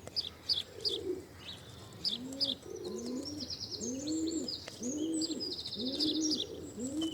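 Doves cooing: a run of low coos, about one a second, starting about two seconds in. Small birds chirp and trill higher up throughout.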